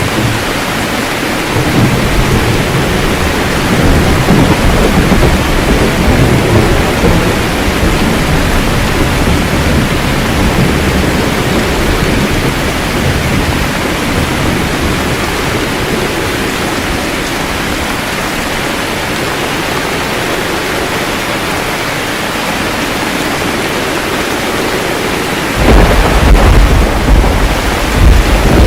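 Steady rain falling during a thunderstorm. Thunder rolls low in the first part, and a loud, sudden thunderclap comes near the end.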